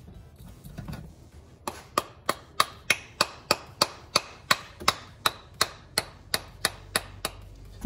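Rubber mallet tapping an oiled steel wrist pin through an LS V8 piston and connecting rod small end. It makes a steady run of light knocks, about three a second, starting a couple of seconds in.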